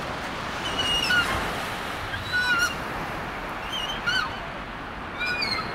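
A swing squeaking in short wavering chirps, once about every second and a half, in time with each end of its arc. A steady wash of surf runs underneath.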